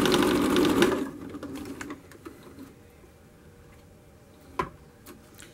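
Electric domestic sewing machine stitching fast with an overstitch along the edge of shaggy fleece fabric, slowing and stopping about two seconds in. A single sharp click comes near the end.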